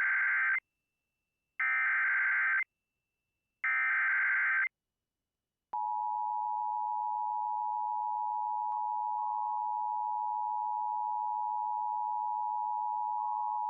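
Emergency Alert System header and attention signal: three one-second bursts of SAME digital header tones about a second apart, then, from about six seconds in, the steady two-tone attention signal. Together they mark the start of a new emergency alert.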